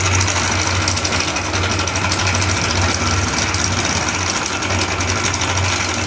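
Hero Honda Passion's single-cylinder four-stroke engine running steadily with a fast, continuous metallic rattle: the noise of a worn, failed timing chain.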